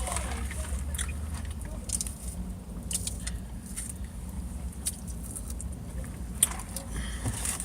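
Close-up chewing with wet lip-smacking clicks, mouth noises of someone eating a sandwich, over a steady low rumble inside a car.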